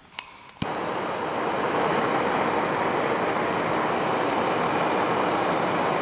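Handheld gas torch: a faint hiss of gas and a click, then the flame catches about half a second in and burns with a steady hiss. It is heating the blades of pruning shears red hot to sterilize them.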